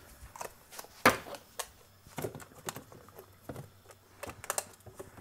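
Scattered light clicks and knocks of a plastic yogurt tub being handled and put away in a fridge, the sharpest knock about a second in.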